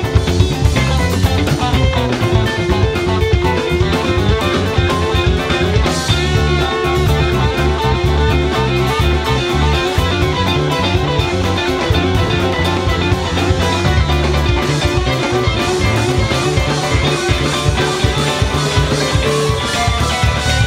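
Live psychedelic rock band playing without singing: two electric guitars, bass, keyboards and a drum kit.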